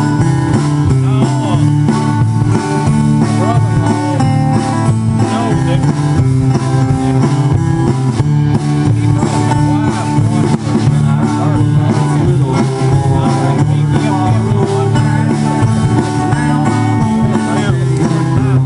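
Live country band playing, with acoustic guitars strummed and picked over an upright bass and a drum kit keeping a steady beat.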